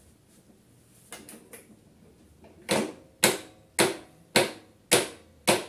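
Briggs & Stratton InStart mower's electric starter trying to crank the engine in jerks: a few faint clicks about a second in, then a steady run of sharp clacks about two a second, with no power to spin the engine, which does not start. The mechanic takes this for a failing starter motor, as the battery is fully charged.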